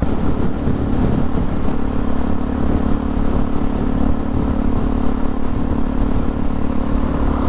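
Yamaha XT660R's single-cylinder four-stroke engine running at a steady cruising speed through a LeoVince exhaust, with no revving.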